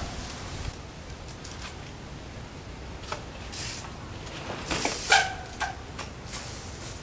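Trials bike hopping over stone blocks and a concrete wall: a few knocks as the tyres land, and about five seconds in a few short, high squeals as the brakes lock.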